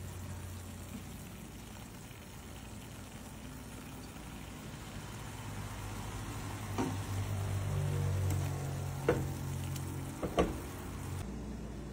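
Pork chop pieces frying in achiote oil in a nonstick pot, a steady sizzle, with a spatula stirring the meat and knocking against the pan three times in the second half.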